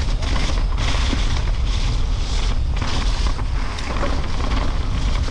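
Wind rushing over a GoPro's microphone as a downhill mountain bike rides down a trail, a steady low rumble with a hiss that swells and fades every half second or so.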